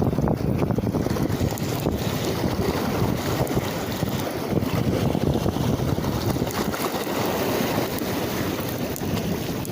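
Wind buffeting the microphone in a steady rumble, with waves washing in the background.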